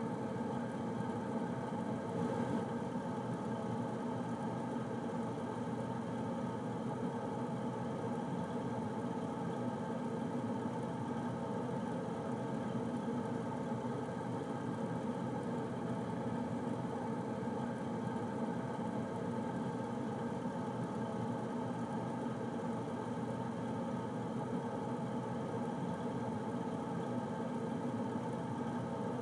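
Air conditioner running steadily: an even whir and hum with a layered mechanical drone that does not change.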